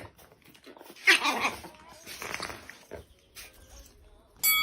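A dog making a few short vocal sounds, the loudest about a second in. Near the end a different, louder sound with steady tones starts abruptly.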